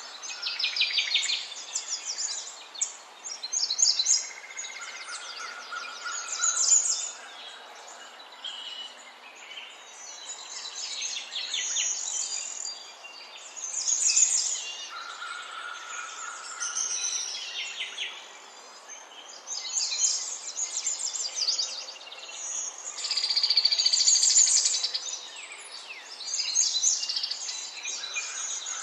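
Several songbirds singing and chirping, with rapid trills and short phrases every second or two over a faint background hiss.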